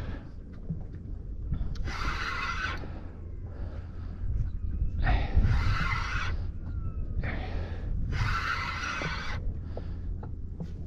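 Large Daiwa Saltist spinning reel working in three short bursts, each about a second long and a few seconds apart, as a big snook is played on a light drag. A steady low wind rumble runs underneath.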